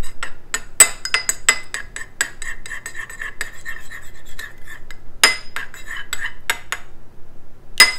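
A metal spoon beating an egg in a small ceramic bowl: quick, irregular clinks of spoon against bowl several times a second, with a short pause near the end.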